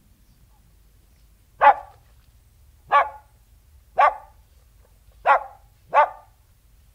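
King Charles Spaniel barking: five short single barks about a second apart, the last two coming closer together, the first the loudest.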